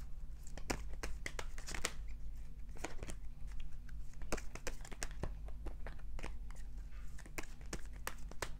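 A deck of tarot cards being shuffled by hand: a run of quick, irregular card flicks and slides, over a steady low hum.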